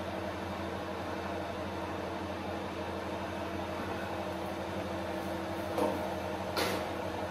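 Steady hum of an electric kitchen fan running, a low even drone with a hiss over it. Near the end comes a short clatter as the tray is handled at the oven.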